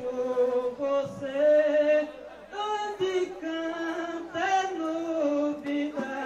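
A man singing an improvised verse unaccompanied in long held notes, the chanted style of a maracatu rural mestre in a sambada verse duel. The voice breaks off briefly about two seconds in, then carries on.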